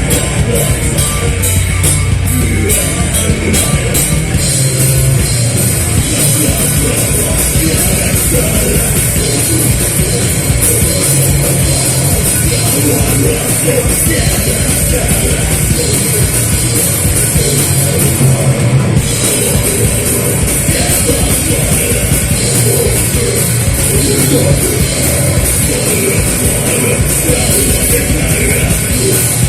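A loud live rock band playing a heavy, dense passage with the drum kit prominent. Rapid drum and cymbal hits run through the first few seconds.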